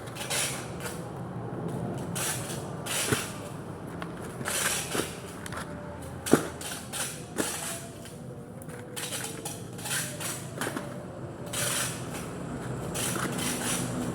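Handling noises: irregular scratchy rustles and a few sharp clicks, the loudest about six seconds in, as a selfie stick and its packaging are handled.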